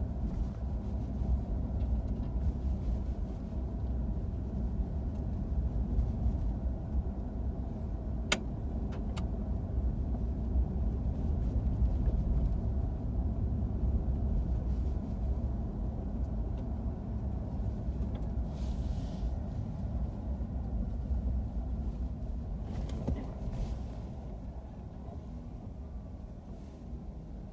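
Steady low road and engine rumble inside a four-wheel-drive vehicle's cabin while driving. Two sharp clicks come about eight and nine seconds in, and the rumble eases a little near the end.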